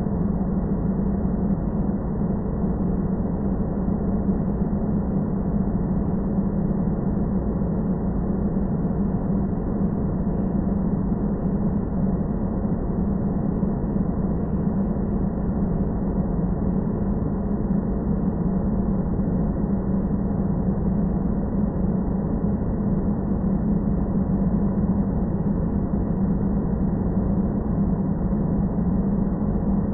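Steady low droning noise, strongest around 200 Hz with nothing above about 2 kHz, unchanging throughout.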